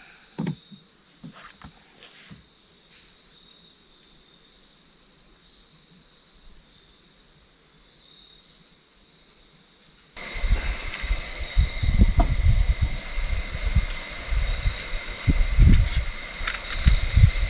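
Insects trilling steadily at one high pitch, with a single knock about half a second in. About ten seconds in the sound changes abruptly to louder, uneven low rumbling and knocks, with the insect trill still going above it.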